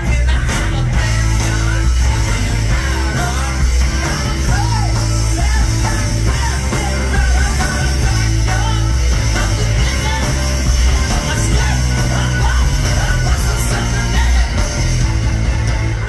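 Live rock band playing loud through a festival PA, a man singing over electric guitar with heavy bass, heard from within the crowd.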